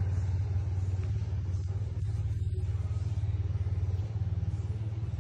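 Motorcycle engine idling steadily, a low even rumble with a fast pulsing beat.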